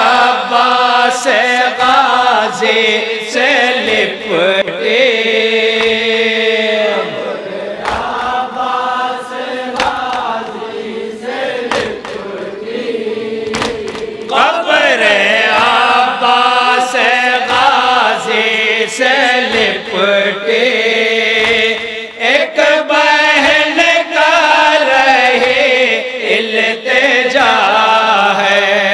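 A group of men chanting a noha, a Shia lament, in unaccompanied chorus over microphones, in long, drawn-out melodic lines.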